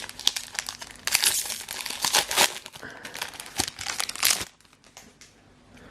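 Foil booster pack wrapper being torn open and crinkled by hand, a dense crackling that dies away about four and a half seconds in.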